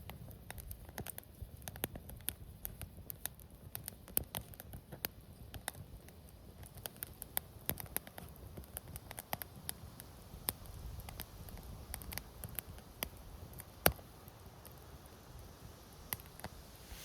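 Wood campfire crackling, with irregular small pops and snaps and one sharp, louder pop about fourteen seconds in.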